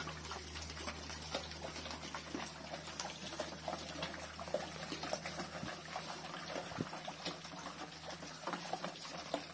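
A group of pigs slurping and chewing wet feed mash with whole corn grain: a steady jumble of small wet smacks and clicks.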